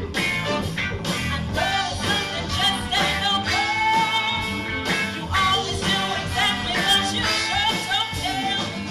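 A rock and roll band playing, with a lead vocal over guitar and a steady drum beat.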